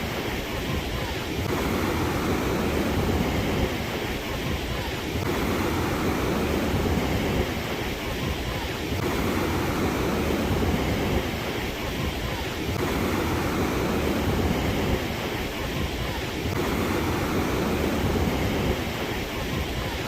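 Ocean surf: waves washing in continuously, swelling and easing in a regular rhythm about every four seconds.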